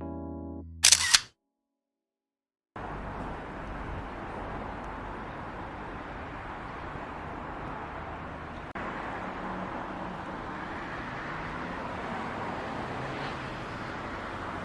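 A camera-shutter click at the tail of a short music cue, then a brief silence, then steady outdoor ambient noise that gets slightly louder about nine seconds in.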